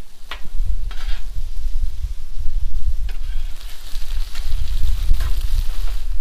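Steak patties, sliced peppers and onions sizzling on a hot Blackstone flat-top griddle, with a metal spatula scraping and clacking on the steel plate a few times as the vegetables are pushed and turned. The sizzle grows stronger about halfway through, over a steady low rumble.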